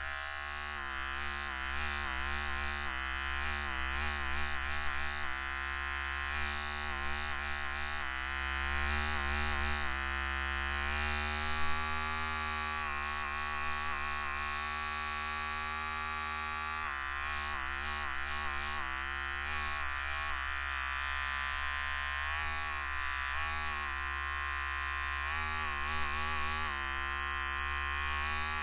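Electric shaver running continuously with a buzzing hum, its tone wavering and bending repeatedly.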